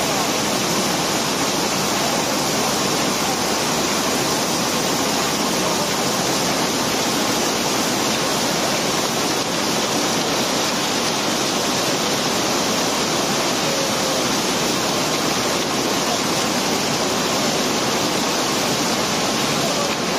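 Cobblestones pouring and sliding down a pile in one continuous rush of many stones, a loud steady noise without breaks or single distinct knocks.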